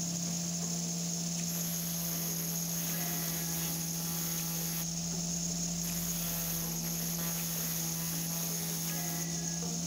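Angle grinder running steadily with a high whine, its abrasive disc sharpening a twist drill bit held in a jig. Twice the bit is pressed to the disc, adding a high grinding hiss for about three seconds each time, with a short break near the middle.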